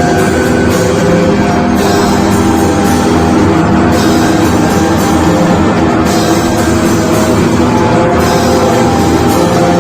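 Rock band playing loudly in rehearsal: a dense, droning noise-rock jam of held, distorted tones over drums, with a brighter hiss swelling about every two seconds.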